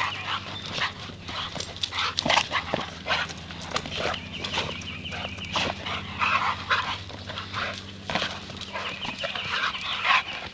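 Two bulldogs barking and whining in short bursts while they leap at a hanging ball, with quick knocks and scuffles throughout.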